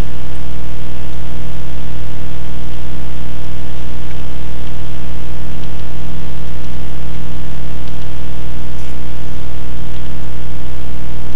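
Loud, steady electrical hum with a stack of low tones and a constant hiss, the noise of the recording chain between spoken lines.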